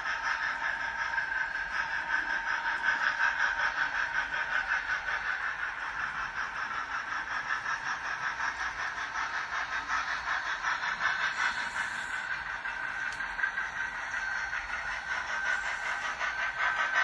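Model steam-locomotive train running on the layout: a steady, fast rhythmic hissing chuff together with the rattle of the cars rolling over the track.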